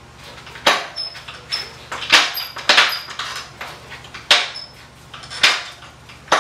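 Gear shift lever and linkage of a 2013 Yamaha R1 being worked up and down by a boot, giving about ten sharp metallic clicks and clunks, some with a brief ring, as the lever height is test-fitted with the engine off.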